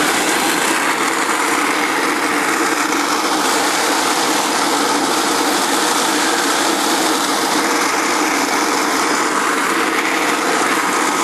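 1920s McCormick-Deering burr mill grinding corn between its two steel discs: a steady, loud mechanical grinding noise.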